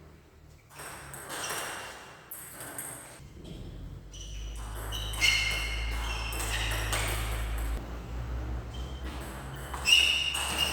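Several sharp ball or racket strikes, each ringing with a ping; the loudest comes near the end. A low steady hum runs under the middle of it.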